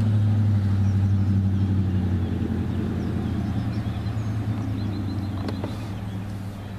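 A motor running with a steady low hum that slowly fades.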